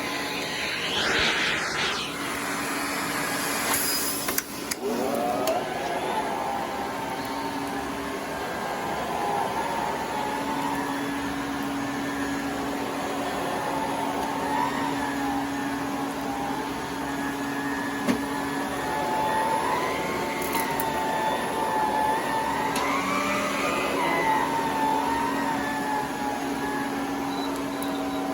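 Electrolux Model 1205 canister vacuum with an electric hose and power nozzle running on carpet: a steady motor hum with a whine that wavers in pitch as the nozzle moves. About four and a half seconds in the sound dips briefly, then a rising whine comes back up to speed.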